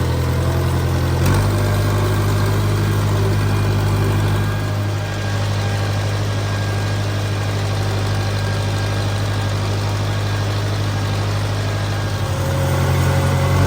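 Case 188 four-cylinder diesel engine of a Case 580CK backhoe running steadily as the machine creeps along in first gear. A short click about a second in, where the engine note shifts slightly.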